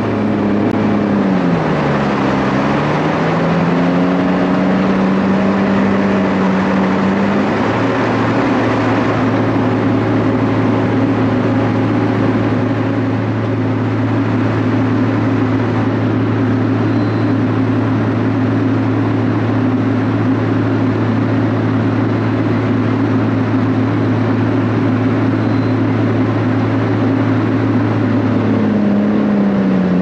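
Heavy farm diesel engines of tractors and a forage harvester running hard under load in mud. The revs dip and climb back in the first few seconds, then hold steady for a long stretch, and sag again near the end.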